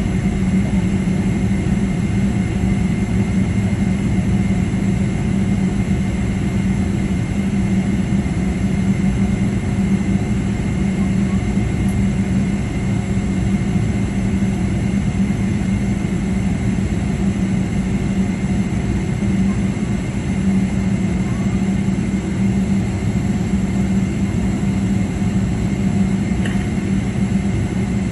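Boeing 777-300ER's GE90 turbofan engines running at taxi power, heard inside the cabin: a steady drone with a strong low hum and a faint high whine.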